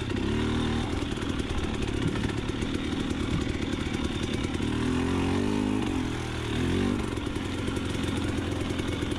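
A motorcycle engine running, its pitch rising and falling, like a throttle being blipped, near the start and again about five to seven seconds in.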